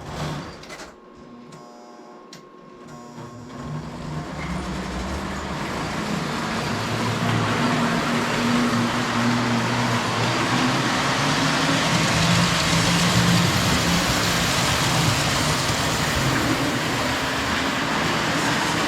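Lionel standard gauge electric model train running on track, with a low motor hum and rumble that builds up over a few seconds and then runs steadily. A few faint clicks come before it starts.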